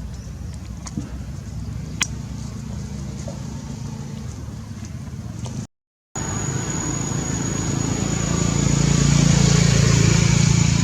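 Steady low background rumble of outdoor noise, with a sharp click about two seconds in. It drops out for an instant at an edit just past halfway, then returns with a thin steady high whine and swells louder near the end.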